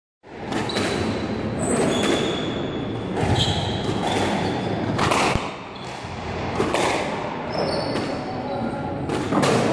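Squash rally: sharp cracks of the ball off the rackets and walls about once a second, with high squeaks of court shoes on the wooden floor.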